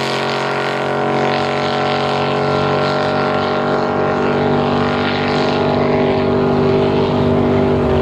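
Racing drag boat's engine running at speed, one steady high-revving note with many overtones holding its pitch.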